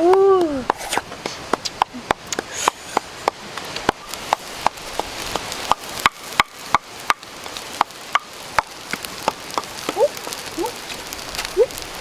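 A pan frying over a wood fire: a steady sizzle with many irregular sharp pops and crackles.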